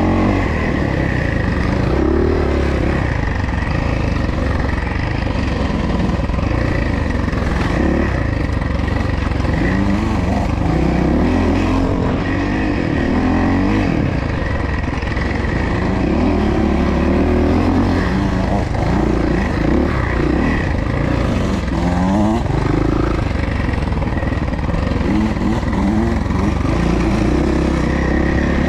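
Suzuki dirt bike engine being ridden hard, its pitch climbing and dropping again and again as the throttle opens and closes.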